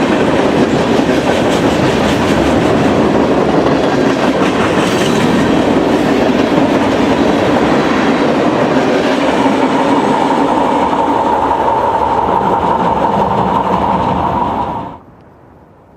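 Freight train cars rolling past with a clickety-clack of wheels over rail joints; a steady high whine joins about nine seconds in. The sound cuts off abruptly near the end, leaving a low hiss.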